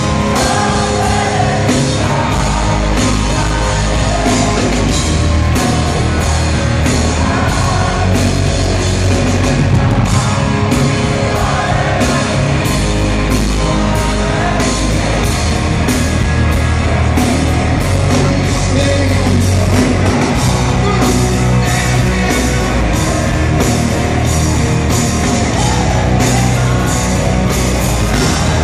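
Live rock band playing a song through an arena PA, with electric guitar, a drum kit keeping a steady beat, and singing over it.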